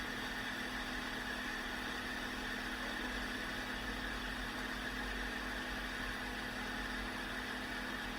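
A steady hum and hiss, like a fan or small motor running, with a low tone held throughout and no changes.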